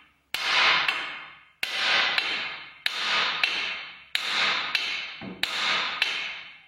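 Repeated sharp metal knocks at a car's front suspension, about one a second, most followed by a lighter click half a second later, each ringing out briefly.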